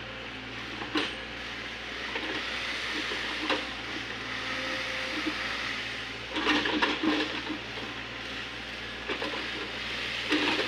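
LOVOL FR80E2 mini excavator running at work, a steady engine and hydraulic noise broken by sharp knocks: single ones about a second in and a few seconds later, a cluster in the middle, and another near the end.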